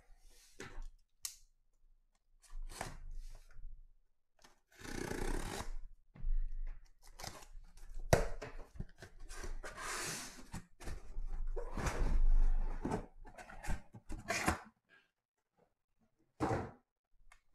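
A cardboard shipping case sealed with packing tape being opened and unpacked: tape cut and torn, cardboard flaps and boxes scraping, and thuds as the sealed boxes inside are lifted out and set down. A sharp knock about eight seconds in is the loudest sound.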